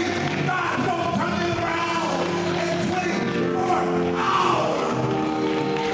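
Church music: steady held chords with voices singing over them.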